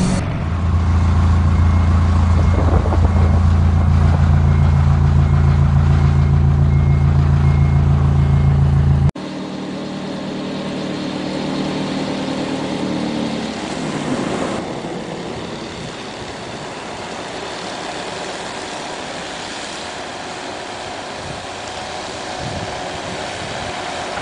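Rotary snow blower's engine running steadily and loudly, with a faint repeating beep over it, cut off abruptly about nine seconds in. After that, a convoy of snow-plough trucks drives past: engines and tyre noise on a slushy road, quieter and more even.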